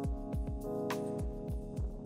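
Background music: sustained keyboard chords over a steady electronic beat of deep kick drums and sharp percussion clicks.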